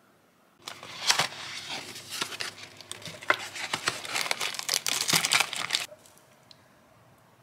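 Crinkling and rustling of a tea box's packaging as a hand opens it and rummages inside, pulling out a pyramid tea bag, with many sharp crackles. It runs for about five seconds and stops abruptly.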